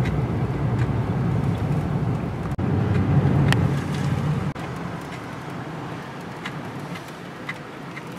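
Car driving, with a low engine and road rumble that drops off sharply about four and a half seconds in, leaving a quieter steady hum.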